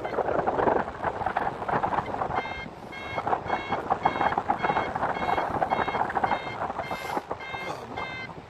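A flight variometer beeping in short, evenly spaced pips, about two to three a second, pausing briefly and starting again about two and a half seconds in; that steady beeping is the signal of climbing in lift. Wind rushes and buffets over the microphone throughout.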